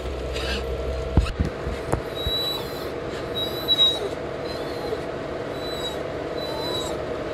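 Car driving on a country road: steady road and engine noise inside the cabin, with short high chirps about once a second from about two seconds in.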